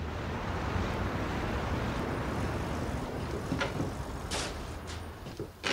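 Steady rumble of street traffic with a low hum, easing slightly after about four seconds, with a few sharp clicks and knocks over the last two seconds.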